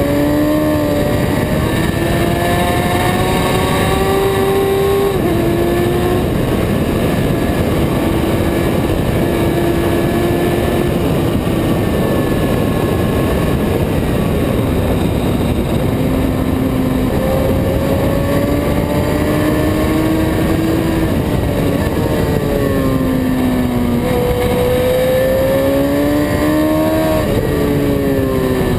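Superbike engine at high revs heard onboard, its note climbing through the gears and dropping at the shifts, with a marked drop about five seconds in and another fall and rise near the end. Wind rushes over the camera microphone at speed.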